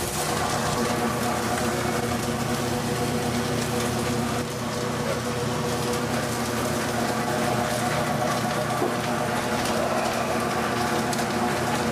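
Seasoned salmon fillet sizzling on a hot flat-top griddle, over a steady machine hum.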